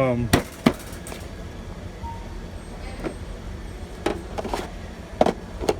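Plastic clicks and snaps from a small-parts organizer box being handled, its latches and lid clicking, with several sharp clicks spread through over a steady low hum.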